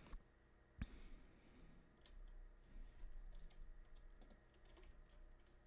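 Faint, irregular clicks of typing on a computer keyboard over near silence, with one sharper click about a second in.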